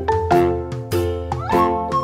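Cheerful children's background music: pitched notes struck on a steady beat, with a short rising slide about a second and a half in.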